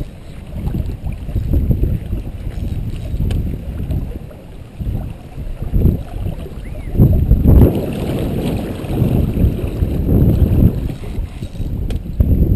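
Wind buffeting the camera's microphone: a gusty low rumble that rises and falls, swelling loudest about seven seconds in.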